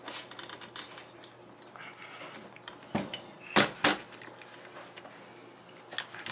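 Metal clicks and knocks of an AR-15's upper and lower receivers being fitted back together while a receiver pin is worked into place, with a few sharp knocks about three to four seconds in.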